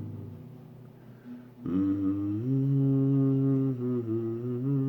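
An acoustic guitar dies away, then from about a second and a half in a man hums long held notes of the melody, moving between a few steady pitches.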